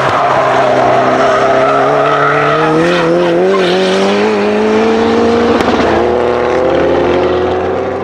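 Turbocharged 2.0-litre four-cylinder engine of a tuned Lancia Delta Integrale 16v pulling under load, its pitch climbing slowly as the revs rise, with a brief break about five and a half seconds in before it climbs again.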